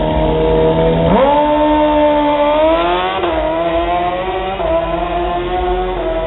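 Drag-racing motorcycle launching off the starting line. About a second in, its engine note jumps sharply up to full revs, then climbs and drops back three times as it shifts up through the gears and pulls away down the strip.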